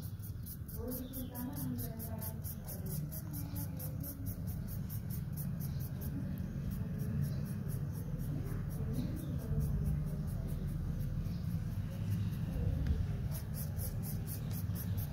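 Black pen scratching on paper in quick, even repeated strokes while shading in a drawing, over a steady low rumble.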